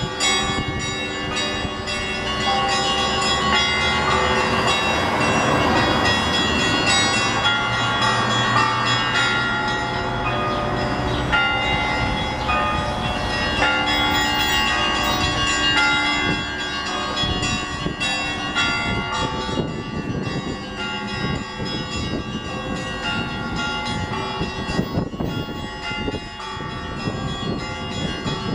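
Russian Orthodox church bells rung by hand: many bells of different pitches struck in a continuous, fast peal, their ringing tones overlapping, with deeper bells sounding beneath the small ones.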